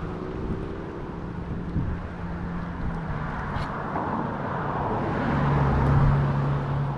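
A low engine hum over a steady rushing noise; the hum drops slightly in pitch about three seconds in and grows louder near the end.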